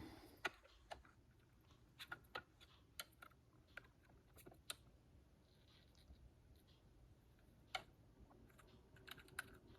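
Faint, scattered small clicks and taps of paper die-cut sprigs being popped out of their sheet and handled, at irregular intervals.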